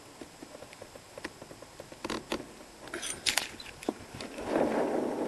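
Handling noise: scattered light taps and clicks, with a few sharper ones in the middle. About four seconds in, a louder, steady rustling noise takes over as the camera is lifted and swung around.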